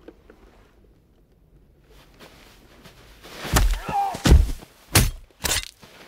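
Film fight sound effects of a close-quarters knife attack. A quiet start gives way, about halfway through, to four heavy thuds and blows in quick succession over about two seconds.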